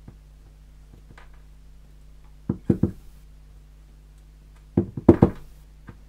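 Metal Medeco mortise cylinder being knocked and handled while its pins are taken out: two clusters of sharp knocks and clicks, three or four quick strikes about two and a half seconds in and a denser run around five seconds.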